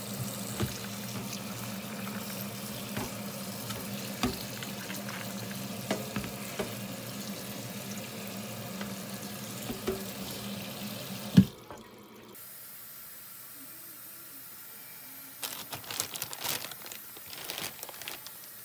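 Tap water running onto dry beans in a plastic colander in a stainless steel sink, with small knocks as a hand stirs the beans. About eleven seconds in, a sharp knock and the water stops. Near the end, plastic bags crinkle as they are handled.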